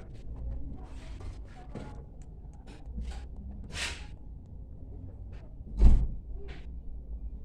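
Scattered clicks and knocks, then a car door shutting with one heavy thump about six seconds in.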